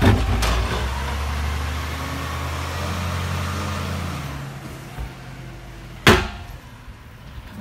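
Side-loading recycling truck's engine running as it pulls away, its low rumble fading over about four seconds. A single sharp knock about six seconds in.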